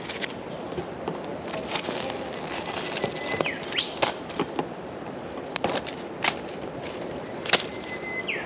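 Campfire crackling, with a few sharp pops over a steady hiss. A bird calls twice, a held whistle that sweeps upward, about three and a half seconds in and again at the end.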